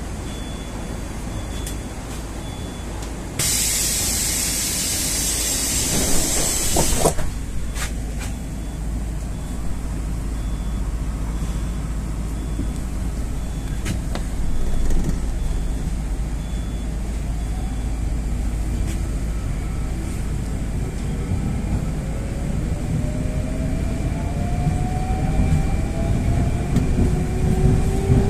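Inside an 81-760A 'Oka' metro car: a steady low hum, then a loud hiss of compressed air about three seconds in, lasting about four seconds. From about twenty seconds in, the traction motors whine in two tones that rise steadily as the train pulls away and gathers speed.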